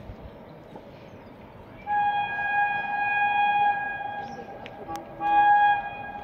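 Horn of an approaching electric locomotive, sounded twice: one steady blast of about two seconds, then a shorter blast after a brief gap.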